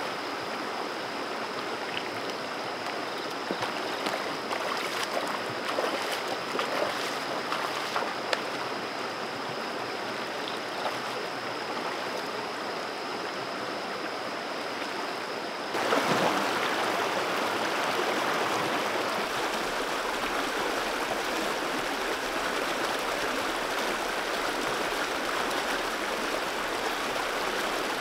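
Shallow rocky stream running over stones, a steady rush of water with a few small splashes from wading. About sixteen seconds in it becomes louder and fuller.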